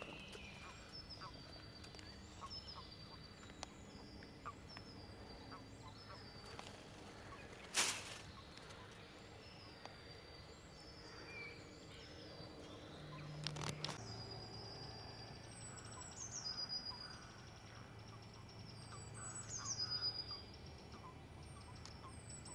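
Frogs making low, soft croaking pulses in several stretches during the second half, under a bird repeating short, high falling notes about once a second. A single sharp click about a third of the way in.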